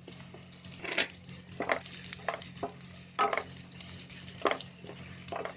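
Wooden spatula stirring raisins frying in ghee in a non-stick pan: separate scrapes and taps against the pan, about one a second, over a faint steady hum.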